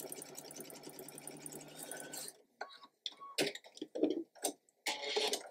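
Sewing machine stitching a seam at a steady speed, stopping about two seconds in. This is followed by a few short clicks and a brief rustle as the sewn fabric piece is handled at the machine.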